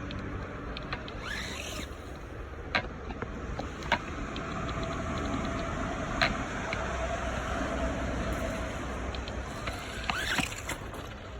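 Xinlehong 9125 RC truck being driven hard: its electric motor whines up twice as it speeds up and holds a steady whine for a few seconds in the middle, over tyre and ground noise, with a few sharp knocks as it hits bumps.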